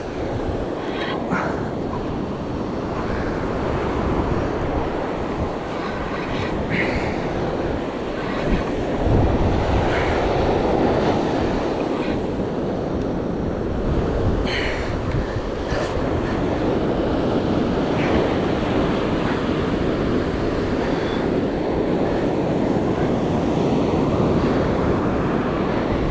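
Steady wind buffeting the microphone mixed with surf washing on a beach, with a few faint short squeaks or clicks now and then.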